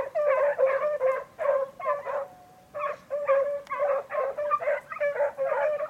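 Hunting dogs yelping in a rapid run of short barks, about three to four a second, with a brief pause a little over two seconds in: dogs giving tongue while chasing a hare.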